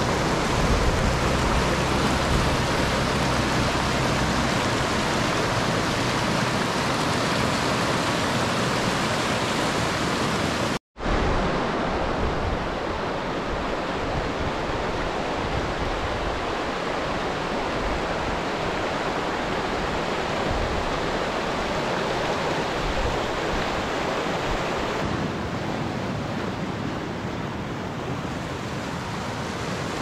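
Clear, shallow spring-fed mountain stream rushing over rounded stones and small rapids: a steady rush of water. It breaks off for an instant about eleven seconds in, and is a little duller in its last few seconds.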